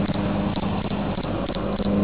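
Cricket chirping in short, high pulses a few times a second, faint under a louder steady low hum.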